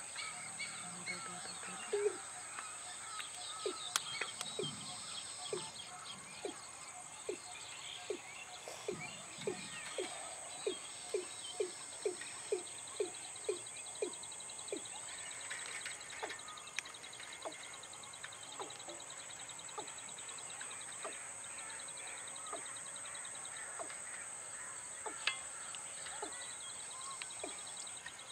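Watercock calling: a series of short, low, clipped notes that speed up to about two or three a second, then slow and thin out. Behind them is a steady high insect drone and scattered small-bird chirps.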